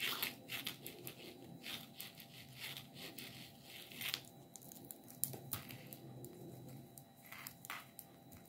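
Knitting needles clicking and scraping faintly against each other, with yarn rustling, in an irregular patter of small clicks as a bobble is knitted.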